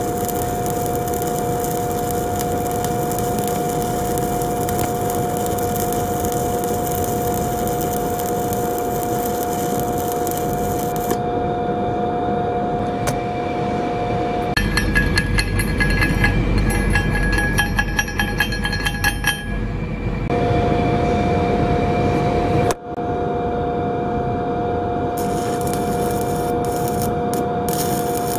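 Stick (SMAW) welding arc running a 7018 electrode on a horizontal 2G joint: a steady, even crackle with a steady hum under it. For a few seconds in the middle a different, rhythmic ticking sound takes its place. The arc crackle then comes back, with a brief break about three quarters of the way through.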